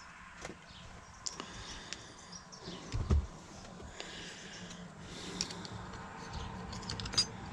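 Small clicks and taps of parts being handled and fitted by hand, with one louder dull thump about three seconds in and a sharp click near the end.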